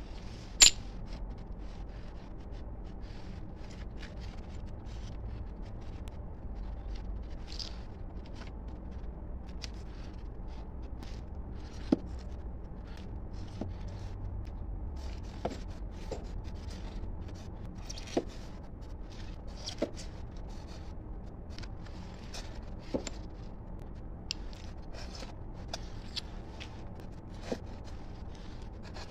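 Gloved hand smoothing wet cement mortar inside a styrofoam mould lined with tile strips: soft scraping with scattered light clicks and taps, and one sharper knock about a second in.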